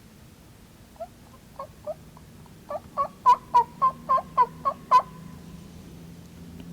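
A series of turkey yelps, about a dozen short notes that each break down in pitch. The first few are soft and spaced out, then they come faster and louder and stop about five seconds in.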